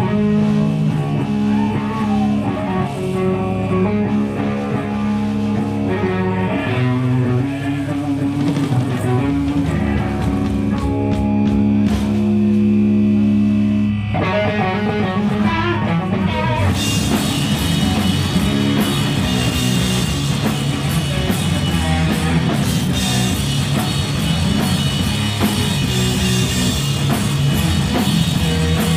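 Stoner rock band playing live: distorted electric guitar and bass riff with long held notes, then drums with cymbals join in about halfway through and the full band plays.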